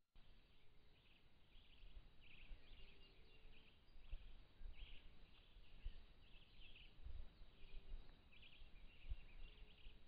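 Faint dawn birdsong from the forest: many short high chirps and trills, in clusters throughout. A few faint low thumps come through in between.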